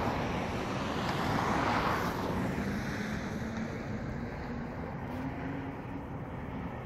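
A motor vehicle passing by. Its noise swells to a peak about two seconds in and then slowly fades, with a faint low hum underneath.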